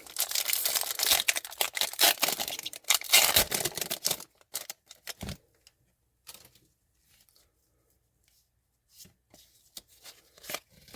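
A hockey card pack's wrapper being torn open and crinkled for about four seconds. Then come a few soft, scattered clicks of cards being handled.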